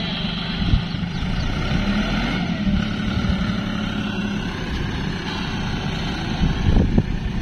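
Farm tractor engine running steadily as the tractor, carrying a pole-digging auger rig, crawls through a muddy field. There are a couple of knocks near the end.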